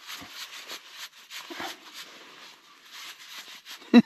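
Thick insulated gloves rustling and rubbing in rapid, irregular strokes as the hands flex and move, with the rustle of a down jacket. A brief, loud vocal sound near the end.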